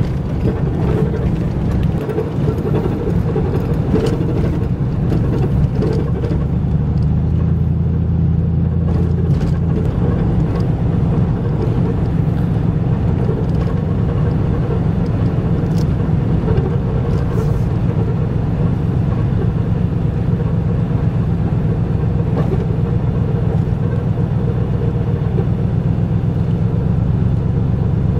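Steady low rumble of a vehicle driving over a plowed ice road, heard from inside the cab: engine and tyres on ice and packed snow.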